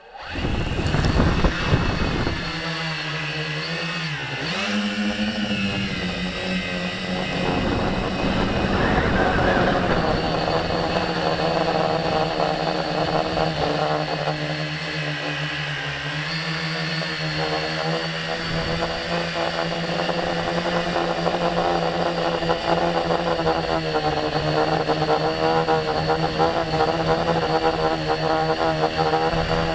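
Tricopter's three electric motors and propellers spinning up abruptly, then a steady buzzing whir with small rises and falls in pitch as the throttle changes, including a brief dip and recovery about four to five seconds in.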